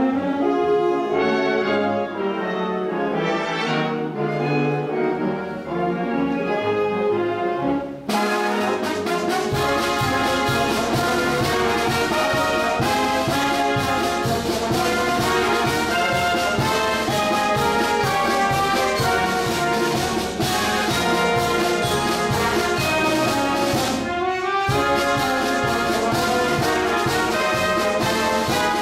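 Concert wind band playing, with brass carrying the melody. About eight seconds in, the full band comes in louder, with percussion keeping a steady beat.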